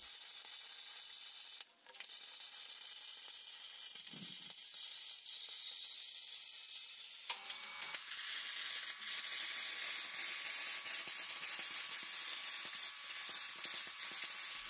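Hand-held plasma cutter cutting quarter-inch plate steel: a steady hiss. It drops out briefly about two seconds in and falters again near seven seconds, the hiccups of the plasma that leave spots not cut all the way through.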